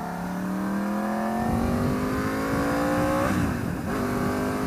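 Motorcycle engine accelerating hard through a gear, its pitch rising steadily for about three seconds, then dropping at an upshift before it pulls again at a lower pitch.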